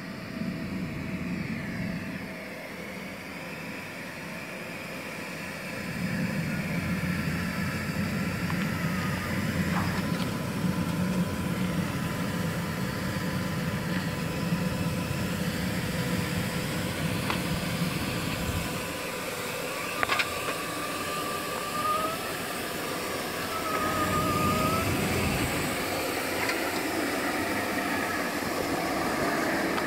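Hako Sweepmaster B 1200 RH battery ride-on sweeper working over brick paving: a steady machine hum and sweeping noise that gets louder from about six seconds in as the sweeper comes close. A few clicks and short high squeaky glides come near the end.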